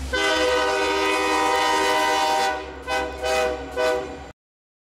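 Union Pacific diesel locomotive's air horn sounding for a grade crossing: one long blast, then two shorter ones, over a low engine rumble. The sound cuts off suddenly near the end.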